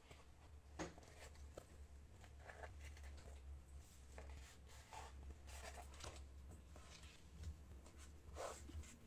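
Faint rubbing and scraping of fingers pressing and sliding along a cardboard strip as its silicone-glued edge is pressed onto a cardboard base, over a low steady hum.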